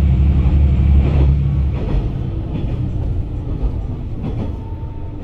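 KiHa 120 diesel railcar running, heard from inside the cabin. The engine's low drone is loud at first and drops away about two seconds in, leaving wheel-on-rail rumble with a few rail-joint clacks.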